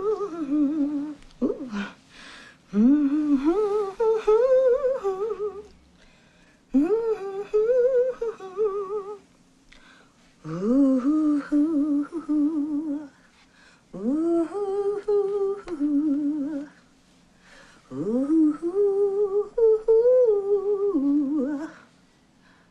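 A person humming a slow, wordless tune in phrases of about three seconds, each opening with an upward slide in pitch, with short pauses between them.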